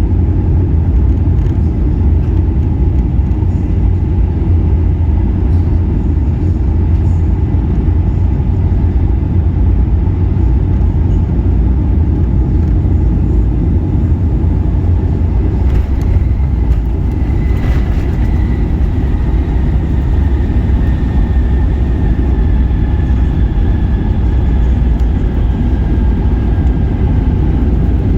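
Boeing 757 cabin noise on descent: a loud, steady low rumble of engines and airflow. About two-thirds of the way through, a thin high engine whine comes in and slowly falls in pitch as the engines change thrust.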